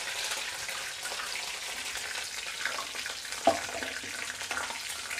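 Curry leaves sizzling and spluttering in hot oil in an aluminium kadai, along with tempering mustard seeds, urad dal, fennel and crushed garlic: a steady frying hiss with small crackles. There is a single sharp click about three and a half seconds in, and the pan is stirred near the end.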